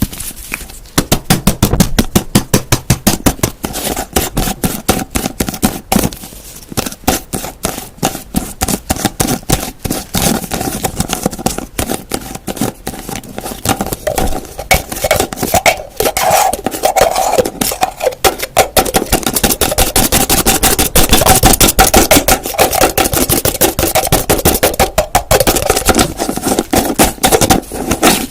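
Fast, continuous tapping on a hard object, many taps a second, with a faint ringing tone from the object underneath.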